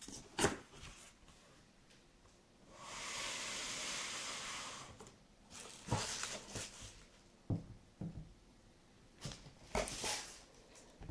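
Cardboard shoebox opened: a steady hiss of cardboard rubbing on cardboard for about two seconds as the lid slides off. Then scattered light knocks and rustles as a pair of running shoes is handled and set down on a table.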